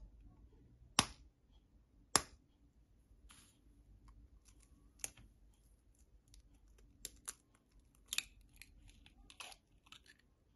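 A knife blade tapping a raw egg's shell, three sharp cracks about a second apart, then the shell crackling and snapping as fingers pry it open.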